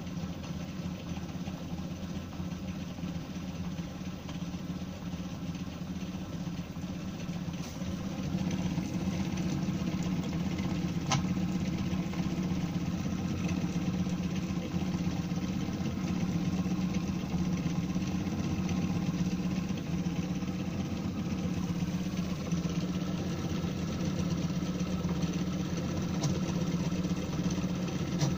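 FDM 3D printer running a print: its stepper motors and fans make a steady mechanical hum that grows louder about eight seconds in, with one sharp click a few seconds later.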